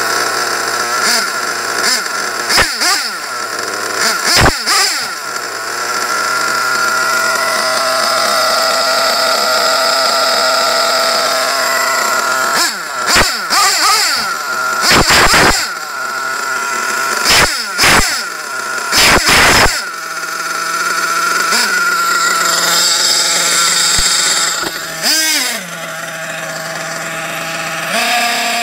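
Novarossi 528 XRS nitro engine in an RC truck idling with a high, buzzing note. It is blipped to high revs in about six short, loud bursts. Later the pitch shifts and glides as the truck drives off.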